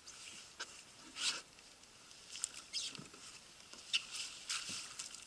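Dry dead reed stalks crackling and rustling underfoot as a person climbs out of a canoe onto a reed-littered shore, in irregular crunching steps with a couple of dull knocks.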